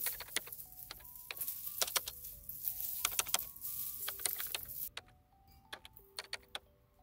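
Dried mint leaves crackling and rustling as they are stripped from their stems by hand, a dense run of small crisp clicks that thins out to a few scattered ones about five seconds in. Background music with a slow stepped melody sounds underneath.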